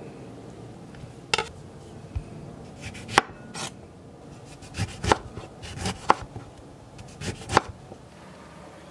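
Kitchen knife slicing lemons on a wooden cutting board: about eight sharp knocks as the blade goes through the fruit and hits the board. They come at uneven intervals, several in quick pairs, with the loudest in the second half.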